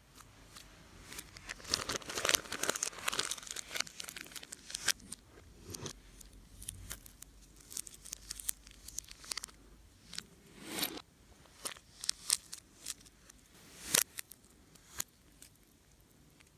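Slime being squished and stretched by hand: a dense run of wet crackles and clicks for a couple of seconds, then scattered sharp pops and short crackling bursts.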